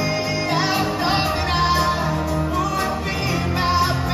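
Live pop-rock band music heard from the audience in a large hall: a sung melody with long held notes over acoustic guitar and bass, with a light steady beat.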